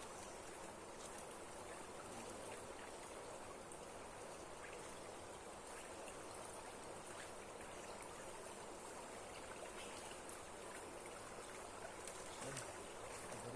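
Steady rush of water from a waterfall running strong, with faint scattered ticks over it.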